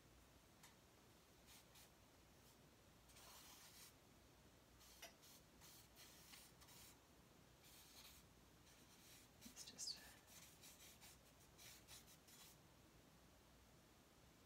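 Faint scratching of a compressed charcoal stick on a paper pad in quick strokes, a longer stroke about three seconds in and a quick run of strokes around ten seconds in.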